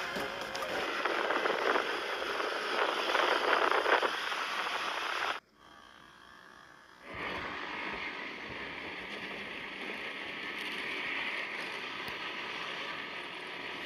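Off-road vehicles running in sand, heard as a rough hissing engine and wind noise. It cuts out suddenly about five seconds in, then comes back as a steadier hiss about seven seconds in.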